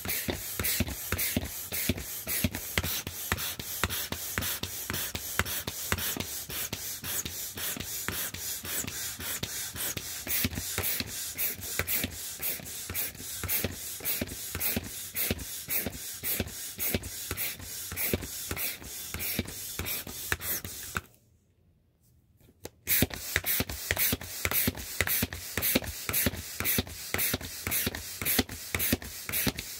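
Manual air pump inflating a vinyl inflatable rooster, a quick, even rhythm of pumping strokes pushing air through the valve. The pumping stops for about two seconds near the end, then resumes.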